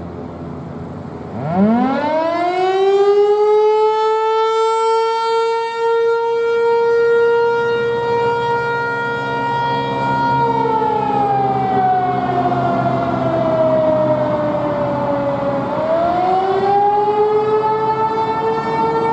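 Outdoor warning siren sounding in a test. About a second in it climbs steeply in pitch to a steady high tone. It holds that tone, glides slowly down in pitch from about halfway, then winds back up to the steady tone near the end.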